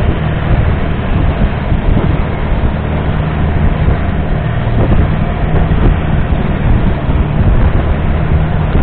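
Longtail boat's big diesel engine running steadily at speed, a low, even drone over a constant rushing noise.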